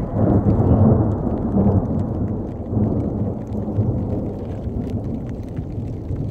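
Thunder rumbling during a rainstorm, loudest in the first two seconds and then slowly dying away, with faint ticks of rain.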